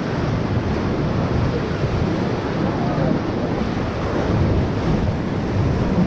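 Whitewater rapid rushing and churning around an inflatable raft, with wind buffeting the microphone.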